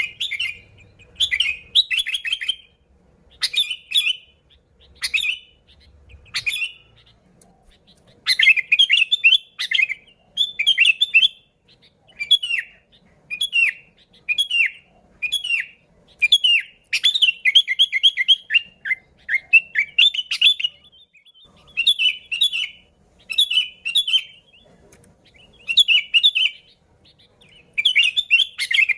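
Sooty-headed bulbul song: short chirping phrases repeated about once a second, with short pauses at first and coming almost without a break from about a third of the way in.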